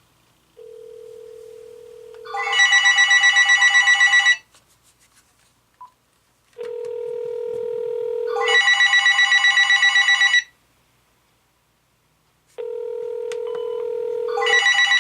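General Electric 2.4 GHz cordless phone giving its electronic ring: a rapid warbling trill lasting about 2 s, three times, the last running on at the end. Each ring is preceded by a steady low tone of about 2 s.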